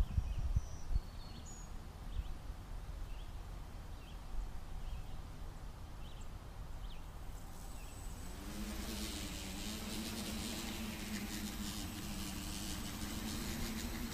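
Quadcopter's electric motors and propellers spin up about two-thirds of the way in and then run steadily with an even buzz and high hiss, the craft sitting ready to lift off. Before that, only faint scattered chirps over a low rumble.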